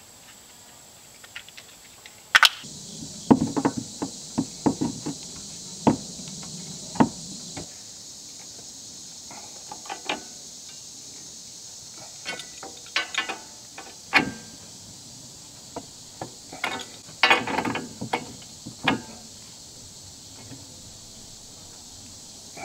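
Black iron gas pipe being worked with a pipe wrench: scattered sharp metal knocks and clanks as the pipe is gripped and turned into its fitting, over a steady background drone of insects.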